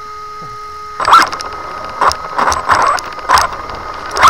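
3S brushless RC car motor (3650 size, 3300kv) whining in repeated short bursts of throttle that start about a second in, each burst rising in pitch. A rattle from the loose buttons of the clipped-on camera runs with it.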